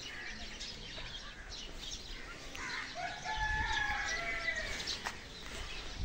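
A rooster crowing once, starting about three seconds in and lasting close to two seconds, with small birds chirping in the background and a low rumble under the crow.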